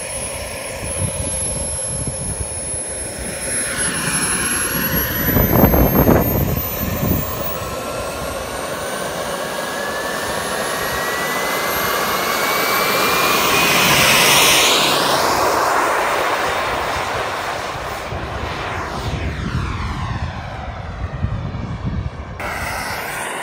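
Small gas turbine of a radio-controlled F-16 model jet whining through its take-off run. The whine climbs in pitch and grows loudest about halfway through as the jet passes close, then falls in pitch and fades as it flies away. A brief low rumble comes about six seconds in.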